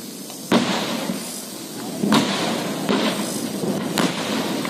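A series of rock-blasting explosions on a hillside: a sudden loud blast about half a second in, another about two seconds in, and smaller sharp reports near three and four seconds, with noise carrying on between them.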